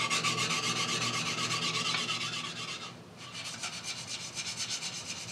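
Usuba knife blade ground back and forth on a wet, convex-surfaced whetstone: a gritty rasping in quick, even strokes. It stops briefly about three seconds in, then resumes.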